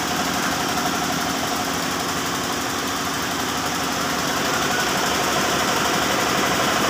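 Yanmar TF105R single-cylinder diesel engine running steadily, belt-driving an air compressor pump on test. It grows slightly louder in the second half.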